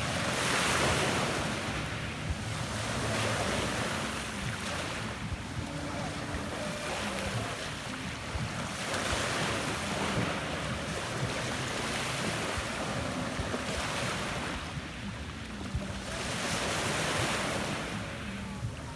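Adriatic Sea waves washing onto a pebble beach: a rush of surf that swells and ebbs every few seconds.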